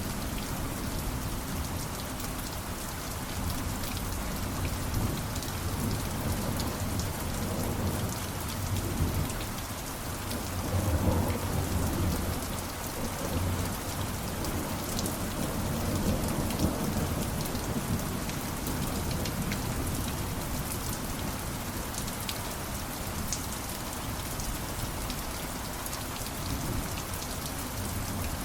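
Steady heavy rain pattering on surfaces, with low rolling thunder underneath that swells to its loudest about eleven seconds in and rumbles again a few seconds later.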